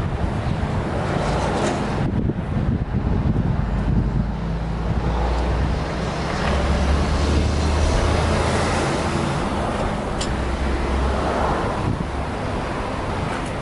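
Low steady rumble of a motor vehicle engine running, swelling about six seconds in, with a single sharp click near the end.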